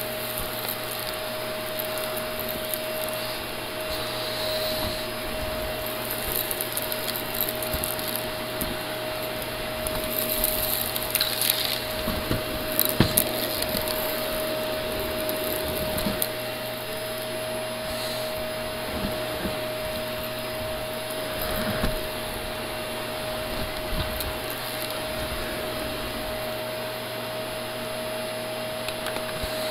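Shark Navigator upright vacuum cleaner running steadily with a constant motor whine, pushed over rug and wooden floor. Scattered clicks and crackles come and go, thickest around the middle.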